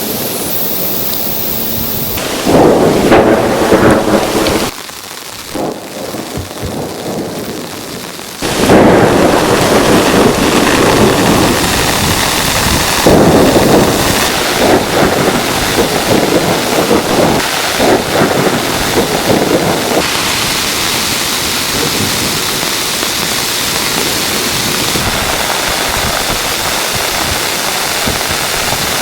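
Heavy rain with rumbling thunder. The rumbles swell loudest a couple of seconds in and again through the middle stretch, and the sound changes abruptly several times, as at cuts between clips, before settling into steady, even rain hiss.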